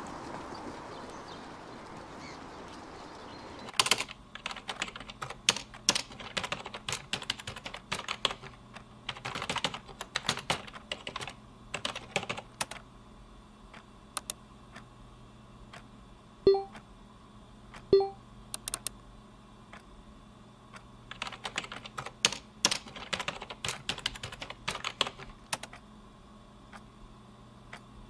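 Typing on a computer keyboard in two long bursts of rapid, irregular keystrokes, with two short beeps in the pause between them.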